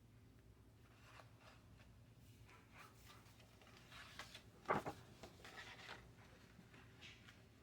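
Quiet handling of paper and card: faint rustles and a light tap about four and a half seconds in, over a low steady hum.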